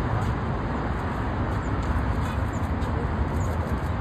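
Steady traffic noise: a low rumble with a hiss over it.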